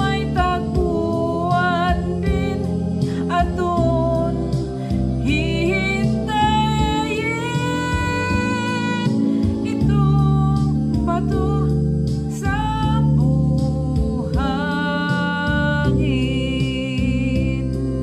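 A woman singing a slow Tagalog love ballad over an instrumental backing track, holding two long notes with vibrato, one about six seconds in and one about fourteen seconds in.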